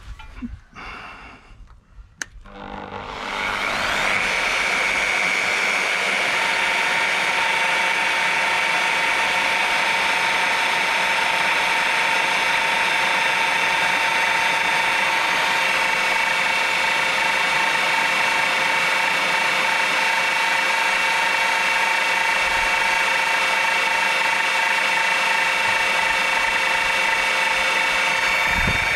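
Magnetic-base drill's electric motor switched on with a click about two seconds in, spinning up over a second or so and then running steadily with a high whine as its annular cutter turns.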